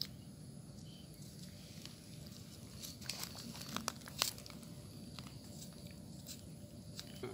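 Scattered soft crackles and clicks of pomelo pulp and peel being pulled apart and handled, with a cluster of sharper ones about three to four seconds in.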